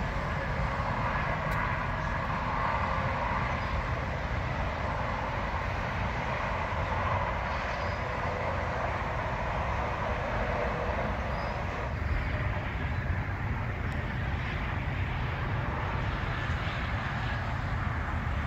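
Steady noise of interstate highway traffic, with a low rumble of wind on the microphone.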